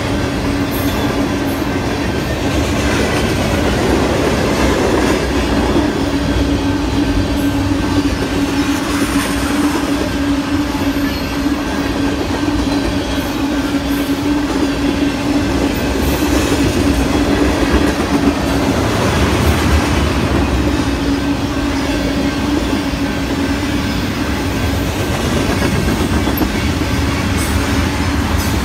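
Freight train of tank cars and covered hoppers rolling past: steady rumble and rattle of wheels on rail. A steady low hum runs through it and fades out about two-thirds of the way through.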